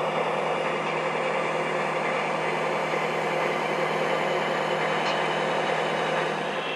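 O gauge model freight train running, its locomotive's sound system playing a steady engine rumble. The sound eases slightly near the end.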